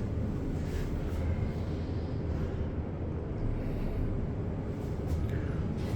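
A 1984 elevator cab travelling between floors: a steady low hum and rumble, with a few faint clicks.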